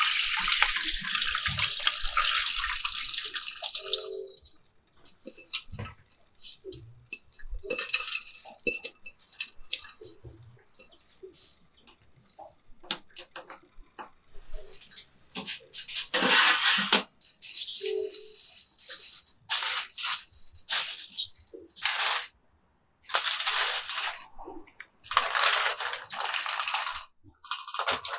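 Water rushing for about four seconds as soaked blanched almonds are poured out of a pot into a plastic colander. After a few faint clicks of an oven temperature dial, a series of second-long bursts follows: the almonds rattling and crinkling as they are scattered onto a foil-lined baking tray.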